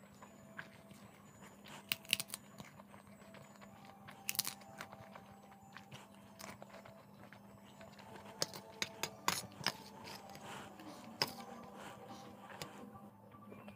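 Crisp sago papad being bitten and chewed close to the microphone: a scatter of sharp crackling crunches, thickest in a run near the end, over a faint steady hum.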